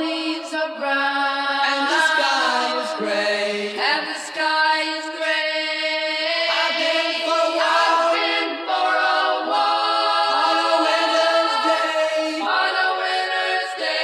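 Music: layered sung voices holding long notes, a cappella or choir-like, with no engine sound beneath.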